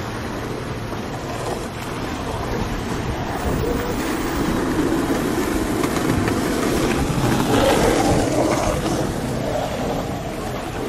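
Steady rumble of a boat's engine and water noise, growing louder through the middle and easing near the end.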